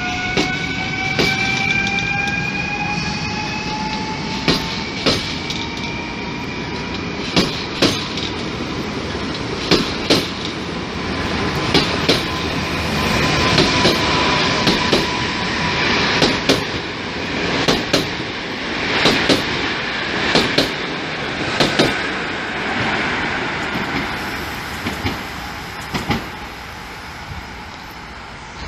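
Two coupled Newag Impuls 45WE electric multiple units accelerating past, the traction motors' whine rising in pitch over the first few seconds. The wheels then clack over rail joints in quick pairs as each bogie rolls by, and the sound fades near the end as the train draws away.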